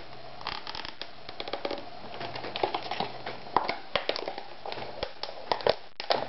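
Clear plastic packaging crackling and crinkling as hands pry at and open a plastic box: irregular sharp clicks and crackles, sparse at first and busier from about two seconds in.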